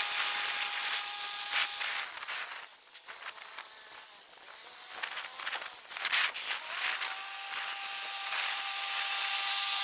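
Farm tractor tilling a field, engine and tiller running with a steady high whine. It is loud as it passes close, falls away about two seconds in as it heads to the far end, and grows loud again from about seven seconds in as it comes back.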